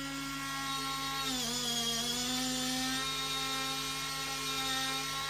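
LOQED Touch smart lock's battery-powered electric motor whirring steadily as it turns the lock to open the door and draw back the latch, its pitch dipping briefly about a second and a half in.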